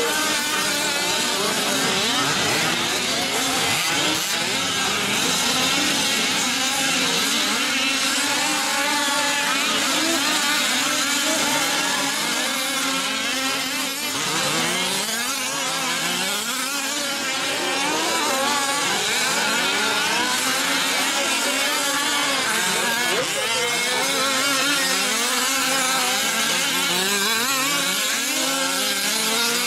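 Several 5th-scale RC off-road trucks' small two-stroke petrol engines running together, each revving up and easing off on its own so that the pitches overlap and cross.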